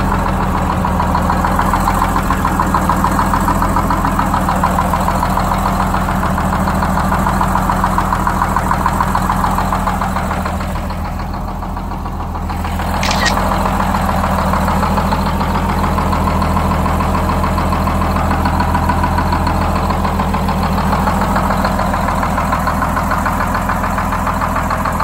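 Detroit Diesel 6-71 inline-six two-stroke diesel engine of a 1948 Greyhound Silverside bus idling steadily just after start-up. The sound dips briefly about halfway through.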